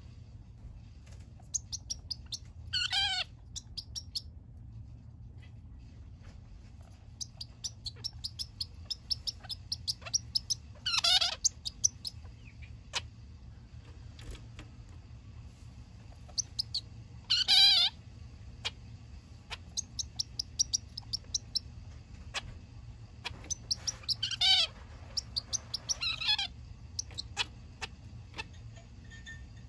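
Male zebra finch giving its loud, nasal "beh" calls, about five over the stretch and several seconds apart, each about half a second long. Between them it makes runs of short, soft ticking notes.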